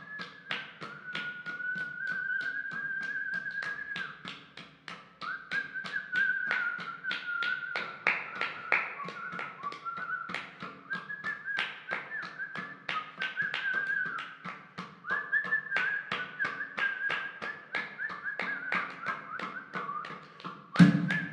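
Music track: a high, wavering melody line over quick tapping percussion, with a loud thump near the end.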